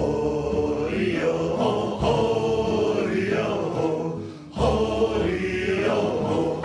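Intro theme music of held, chant-like sung tones. It fades briefly about four seconds in, then comes back in.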